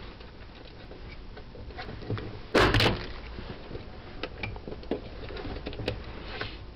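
Impact punch-down tool firing as it seats and trims a wire in a 66 block's insulation-displacement contact: a sharp double clack about two and a half seconds in. Light clicks of the tool and wires against the plastic block come before and after.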